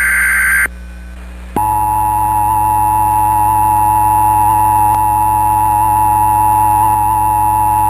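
Emergency Alert System broadcast: a high-pitched SAME digital header burst, coding a Civil Emergency Message, ends under a second in, and after a short gap the steady two-tone EAS attention signal starts about a second and a half in and holds.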